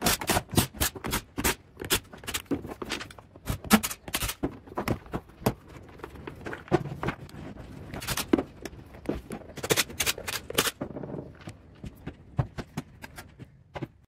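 Cordless driver backing out the screws of a hedge trimmer's plastic housing, with many sharp, irregular clicks and knocks as plastic covers and screws are handled and set down.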